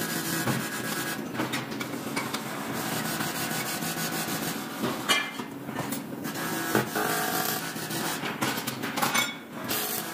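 Metal-fabrication workshop noise: a continuous rasping hiss with a few faint steady tones, broken by brief dips about a second, five seconds and nine seconds in, with small metallic knocks.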